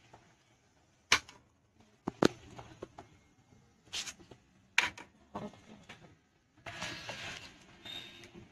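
Clay pot of goat head pieces boiling in water: scattered sharp pops, then a steady bubbling hiss over the last two seconds.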